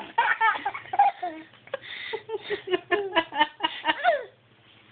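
Baby laughing in a run of short, quick, high-pitched giggles that break off shortly before the end.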